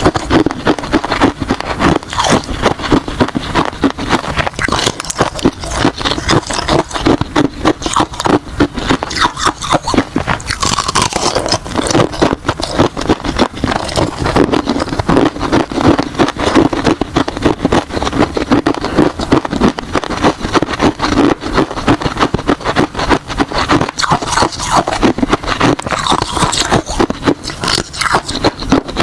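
Ice being bitten and chewed close to the microphone: rapid, dense crunching that keeps up without a break.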